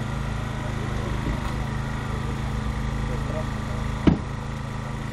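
Small petrol engine of a hydraulic rescue-tool power unit running steadily, with one sharp crack about four seconds in as the tool works on the car's body.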